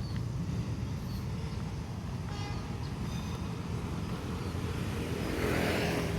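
A vehicle's steady low rumble, with a brief high tone about two and a half seconds in and a hiss swelling near the end.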